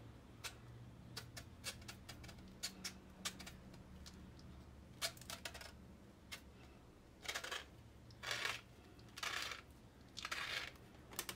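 A serrated knife cutting around a whole avocado through its skin, the fruit turned in the hand: faint small clicks, then about five short scraping strokes in the second half.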